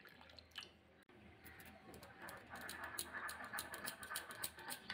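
Metal spoon stirring a wet spice paste in a glass bowl: faint, rapid scraping and clicking against the glass, starting about two seconds in.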